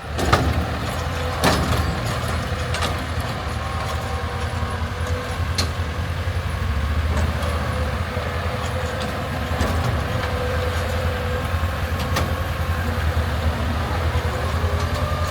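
Tractor engine and pull-type combine machinery running steadily, with a few sharp clicks or knocks, the loudest about a second and a half in.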